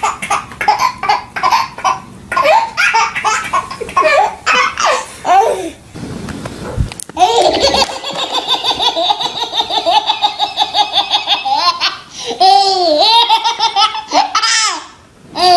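A baby laughing hard in rhythmic belly-laugh bursts, with a short break about six seconds in, then a long run of fast, high-pitched giggling pulses.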